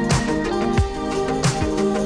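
Background music with a steady beat: a low drum hit about every two-thirds of a second under held chords.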